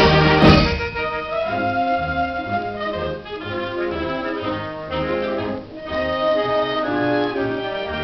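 Concert wind band playing: a loud full-band passage that falls away within the first second, then a softer run of held brass chords.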